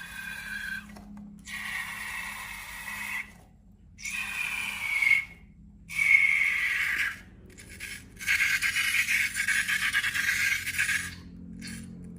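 Balloon and slime being handled: a series of rubbing, scraping strokes, each about a second or two long with short gaps between them, with a faint squeak in them.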